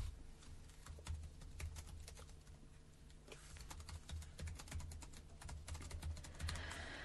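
Faint computer keyboard typing: a run of light clicks with soft low thumps, picked up by the studio microphones during on-air silence.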